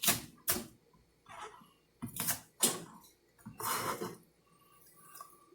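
A handful of short, separate knocks and clinks of kitchen dishes and utensils being handled, with soft rustling between them.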